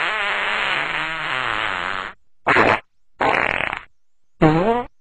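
Fart sound effects dubbed over a man's speech. One long, wavering fart ends about two seconds in, followed by three short ones.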